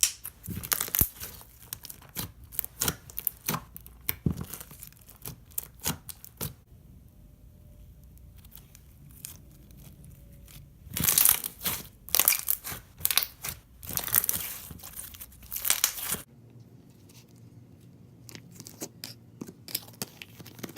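Hands squeezing and stretching a thick foam-bead slime, giving rapid crackling and popping. The crackling comes in two busy stretches, one at the start and one about halfway through, and is sparser and quieter between them and near the end.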